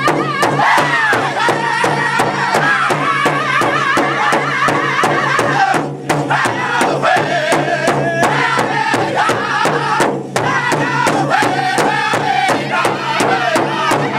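Powwow drum group singing together in high-pitched voices over a steady beat struck in unison on a large shared hand drum, about three beats a second. The singing drops out briefly twice.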